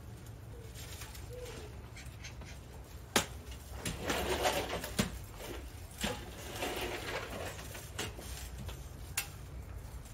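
Burning paper in an open tray giving scattered sharp crackles and snaps, the loudest about three seconds in, over a low steady rumble. A dove coos twice, around the middle and again a couple of seconds later.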